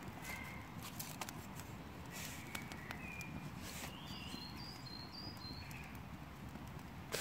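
Woodland ambience with small birds chirping in short notes, over scattered clicks and snaps and a louder snap near the end.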